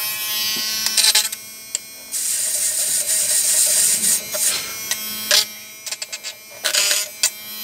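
Small cordless electric screwdriver whirring in short runs on a screw in a plastic soap-dispenser housing, with clicks and rattles between the runs.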